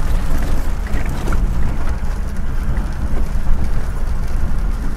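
Inside the cabin of a four-wheel-drive vehicle driving on a rough dirt track: a steady low rumble of engine and tyres, with a few faint ticks.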